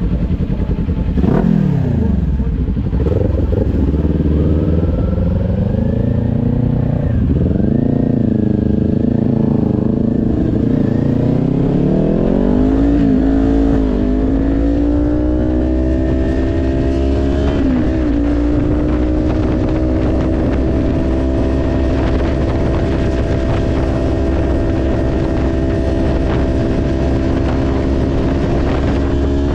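Green Kawasaki sport bike's engine heard from the rider's seat: a quick rev about a second in and uneven low-speed revs in traffic, then a rising pull about halfway through, one brief dip, and a steady engine note as the bike cruises.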